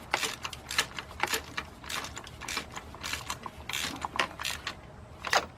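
A hand ratchet wrench clicking in short irregular runs as bolts are turned on the engine.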